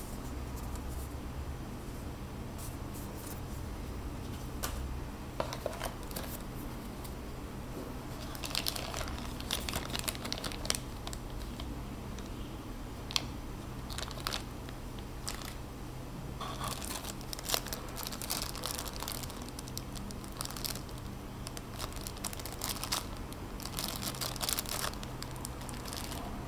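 Packaging being handled and opened by hand, crinkling and tearing in irregular bursts of crackles and clicks.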